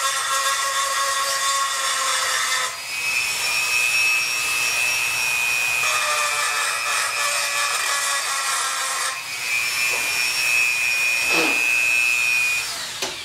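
Dremel 4000 rotary tool with a porting bit grinding the port of a Chinese 80cc two-stroke bicycle engine's cylinder: a steady high whine over a hissing grind. The whine shifts in pitch a few times and stops near the end.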